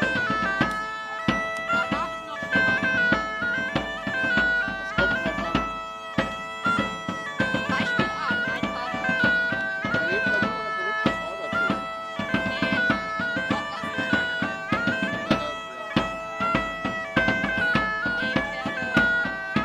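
Bagpipes playing a stepping folk melody over a steady drone, with drums beating along.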